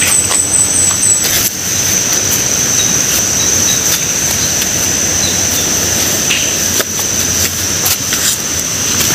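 Steady rushing outdoor noise with a continuous high-pitched insect buzz over it, and a quick run of about five repeated chirps in the first second.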